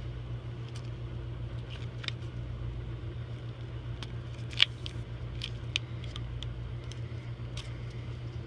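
Steady low mechanical hum with a few scattered small clicks and taps of hands working putty onto a pipe fitting; the sharpest click comes about four and a half seconds in.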